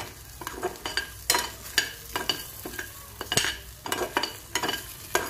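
Metal spoon stirring dry-roasted fox nuts (makhana) around a non-stick pan: irregular scrapes and knocks, about three or four a second, with the puffed seeds tumbling against the pan.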